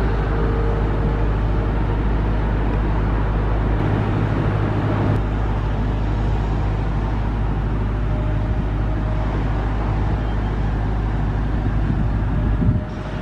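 Jet engine noise of airliners on final approach, steady and loud with a deep low rumble. First comes a British Airways Boeing 747-400. After a cut about four seconds in comes an Airbus A320neo-family jet.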